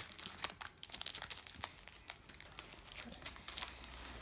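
Trading card pack wrappers crinkling and being torn open by hand: a run of sharp crackles that grow sparser in the second half.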